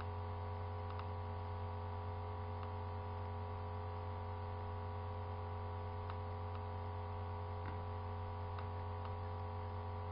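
Steady electrical mains hum with a buzzing overtone, with faint computer-mouse clicks now and then.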